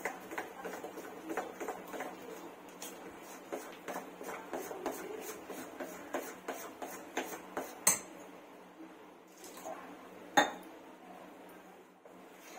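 Metal spoon beating besan (gram flour) batter in a stainless steel bowl, clinking against the bowl's sides about two to three times a second. The strokes thin out later, with two louder clinks.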